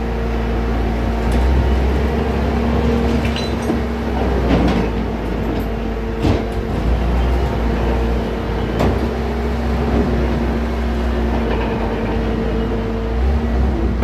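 Bobcat T650 compact track loader's diesel engine running with a steady low rumble and hum. A few sharp metallic clanks come through, the loudest about four and a half, six and nine seconds in.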